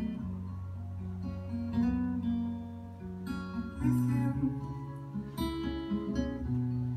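Acoustic guitar music, with chords strummed every second or so over held low notes.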